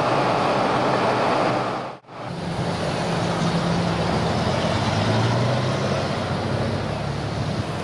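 Station platform noise beside a standing electric express train cuts off abruptly about two seconds in. It gives way to city street traffic, with the steady low hum of idling road-vehicle engines.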